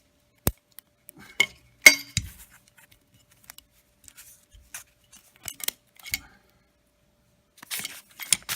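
Metal parts of a motorcycle rear stand being handled and taken apart: a scatter of sharp clinks and knocks, the loudest, with a short ring, about two seconds in. A rustle starts near the end.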